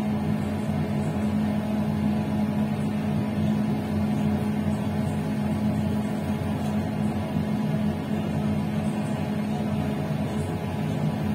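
Steady hum and running noise of an electric passenger train in motion, heard from inside its rear cab, with a strong low droning tone that does not change.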